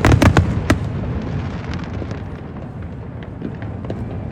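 Fireworks going off: a quick run of sharp bangs in the first second, then a lingering rumble with faint scattered crackles and pops.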